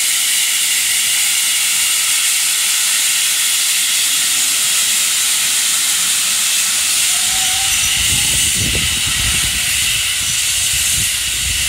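Steam hissing steadily and loudly from a GWR Large Prairie 2-6-2 tank locomotive, with a plume blowing from the top of its boiler, as the train departs. About two-thirds of the way in, an uneven low rumble joins in as its coaches pass.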